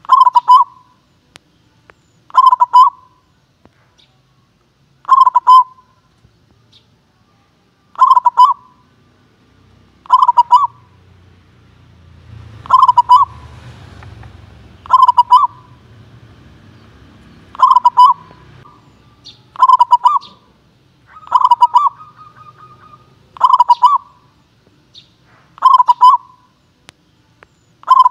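Zebra dove (perkutut) cooing its song: a short phrase of quick coos, repeated about every two seconds.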